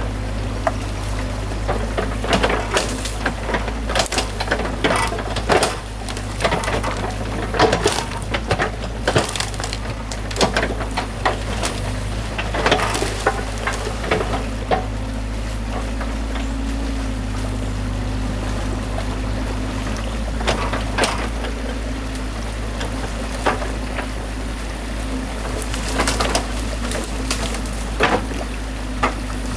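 Excavator engine idling steadily, with irregular snaps and clatters of sticks as branches are pulled by hand from a beaver dam in a stream.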